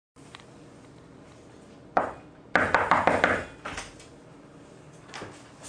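Faint room tone broken by a sharp knock about two seconds in. About half a second later comes a second or so of clattering and knocking of handled objects, then a few lighter clicks.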